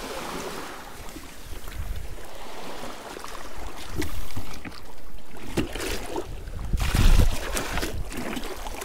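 Shallow seawater splashing and sloshing as someone works in the shallows, with wind buffeting the microphone; the splashing gets louder about four seconds in and again about seven seconds in.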